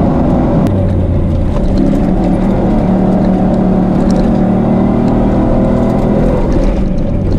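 A rally pickup truck's engine running hard at a steady speed, with tyre and track noise, heard from inside the cab.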